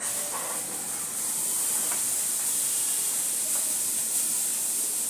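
Food frying in a hot pan: a steady, high sizzling hiss that starts suddenly, with a few faint ticks.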